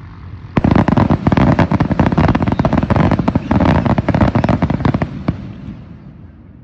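Aerial fireworks going off in a dense barrage of rapid bangs and crackles. The barrage starts suddenly about half a second in, runs for about five seconds, then fades out.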